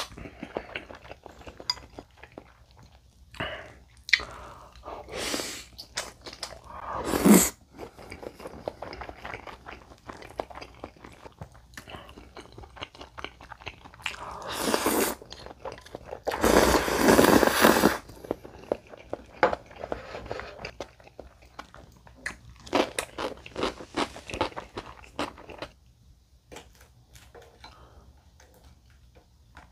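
Close-up sounds of a man eating jjajang noodles: loud slurps of noodles between stretches of wet chewing and crunchy bites, with short quiet pauses.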